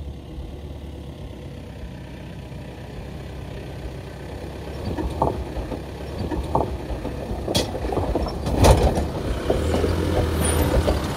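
Land Rover Discovery 4x4 crawling slowly over a rocky track, its engine running low and steady. From about five seconds in, tyres crunch over loose stones and the vehicle knocks and clunks as it drops over rocks, loudest near nine seconds.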